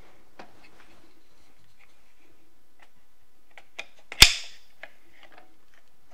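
Small clicks and taps from parts being fitted and adjusted on a tripod head and phone mount, with one sharp, loud snap about four seconds in.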